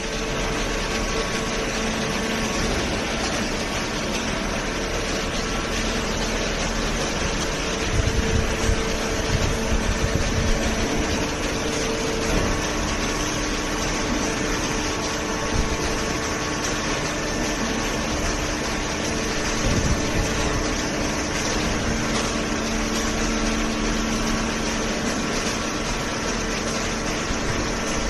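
Conveyor-fed horizontal hydraulic cardboard baler running, a steady mechanical hum of its pump motor and feed conveyor. A run of low thuds comes about eight seconds in, and another near twenty seconds.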